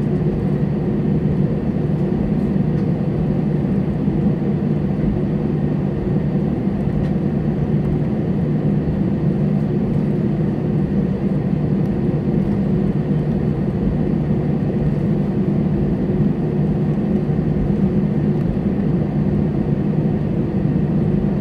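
Steady low drone of an airliner's jet engines and cabin, heard from inside the cabin as the plane taxis.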